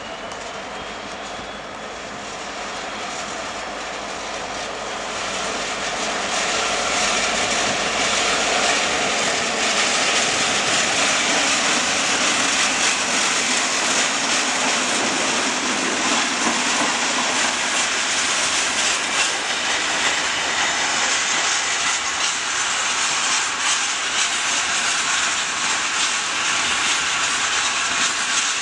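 Class 59 diesel-electric freight locomotive's EMD two-stroke engine drawing near and passing close, growing louder over the first six seconds, then holding steady as the locomotive and its loaded box wagons run by on the rails.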